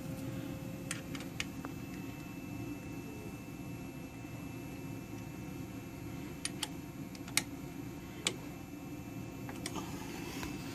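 A few faint, sharp clicks and ticks of metal parts being handled over a low steady hum, as the clamp-height adjusting bar of an electronic tacker is turned by hand.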